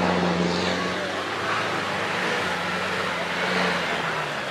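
Engine of a Troller 4x4 running under load as it drives through a deep mud pit, a steady low engine tone that fades into a noisy rush after about a second, with crowd voices.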